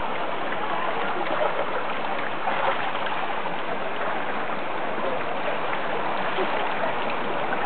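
Artificial rock waterfall pouring into a swimming pool, a steady rush of falling and splashing water.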